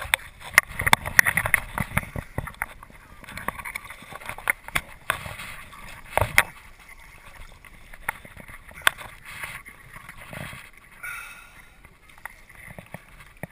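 Irregular knocks and scrapes of the camera and hands bumping against a rock up close, over the faint sound of running river water.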